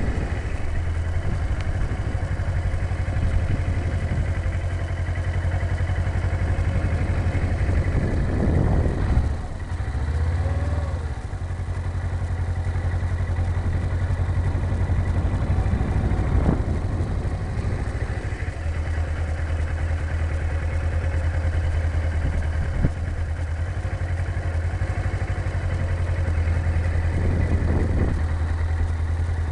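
Motorcycle engine running at low speed, heard through an in-helmet camera, during slow tight turns. The note holds steady with a few brief swells and dips of the throttle; the clearest is about ten seconds in.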